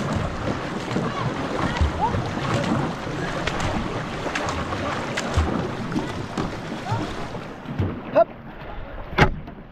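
A two-person racing canoe under way: water rushing and paddles splashing, with wind on the microphone. The rush thins out about seven and a half seconds in, and two sharp knocks follow near the end.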